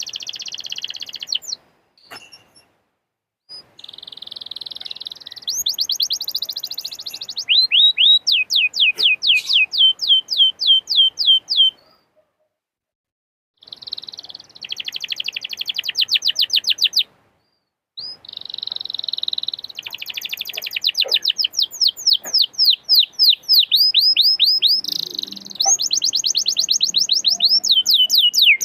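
Domestic canary singing in long fast trills and rapid strings of repeated down-sweeping notes, with a few abrupt silent breaks between phrases.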